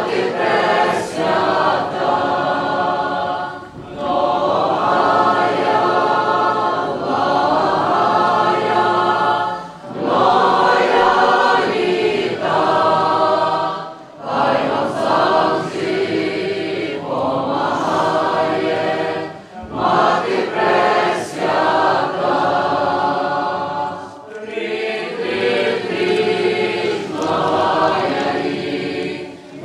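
A choir singing, in phrases a few seconds long with short breaks between them.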